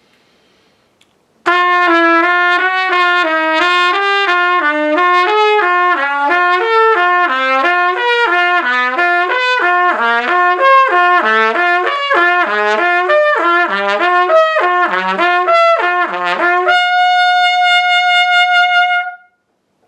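Trumpet playing a slurred lip-flexibility exercise: a tongued first note, then quick notes fanning out from the G on the staff, alternating ever higher and ever lower steps, ending on a long held high note that cuts off about two seconds later. It starts about a second and a half in.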